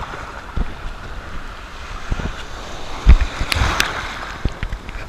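Ocean surf and water sloshing around a camera at the waterline, with low thumps of water against it and a louder splash about three seconds in as whitewater washes past.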